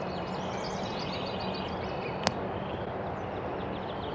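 Outdoor ambience: birds chirping faintly over a steady background hiss and low hum, with one sharp click about two seconds in.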